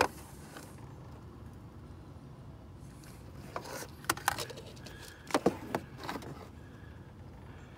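Faint steady hum with a few light clicks and knocks in the middle, small handling sounds.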